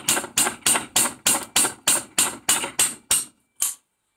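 A hammer tapping rapidly on a steel bar held in an Allen socket on a tight hub bolt, to shock the bolt loose. There are about three metallic blows a second, each ringing briefly. The tapping stops a little over three seconds in, with one last blow just after.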